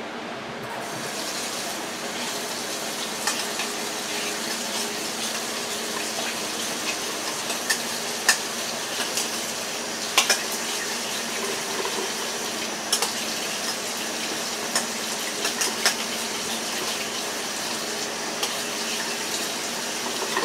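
Kitchen tap running steadily, with scattered light clinks over the water.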